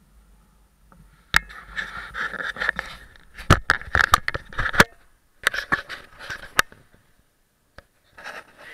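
A gloved hand handling and repositioning an action camera on its mount, close to the microphone: scraping and rubbing on the housing with runs of sharp clicks, starting about a second and a half in and again around five and a half seconds, then a lone click and a short scrape near the end.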